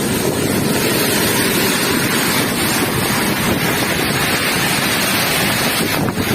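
Heavy rain pouring down in strong wind: a loud, steady rushing hiss, with wind buffeting the microphone.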